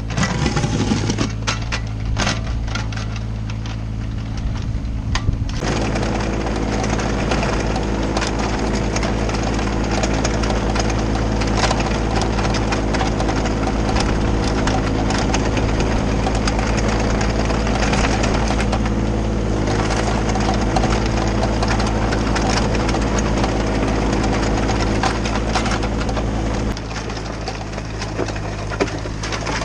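Komatsu mini excavator's diesel engine running steadily under load, with gravel crunching and scraping under its blade and bucket. The engine and the scraping grow louder about five seconds in and drop back shortly before the end.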